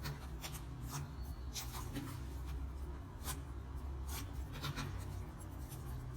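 Homemade slime being handled, giving irregular soft clicks and squishy pops with light rubbing.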